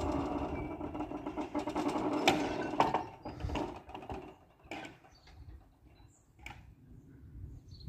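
Railway level-crossing barrier booms lowering: the drive mechanism runs with a steady whirring. It ends in a couple of sharp clunks about two to three seconds in as the booms come to rest, and a few faint clicks follow.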